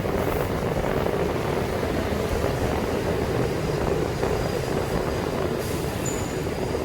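Passenger's view from a motorcycle taxi in motion: a steady rush of wind and road noise, with the motorbike's engine and surrounding traffic mixed in.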